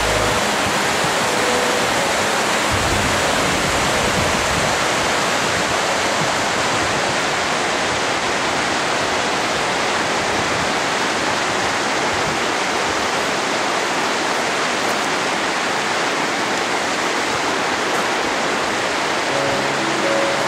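Rushing white water of a fast mountain river over rocks: a steady, unbroken rush with no change in level.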